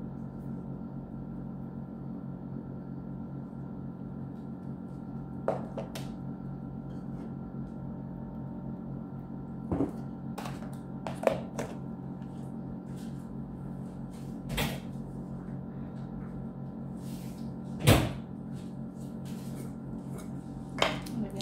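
Several short knocks and clicks of spice jars and containers being handled and set down on a table, the loudest about eighteen seconds in, over a steady low hum.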